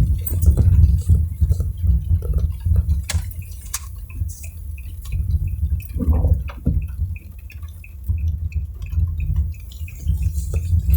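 Car driving in the rain, heard from inside: a steady low road and engine rumble with scattered taps of raindrops. From about four seconds in, a regular high tick sounds about three times a second for several seconds.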